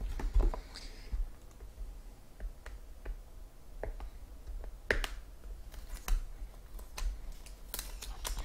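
Scattered clicks and taps of a sports-card box and its packaging being handled and opened by hand, coming more often near the end.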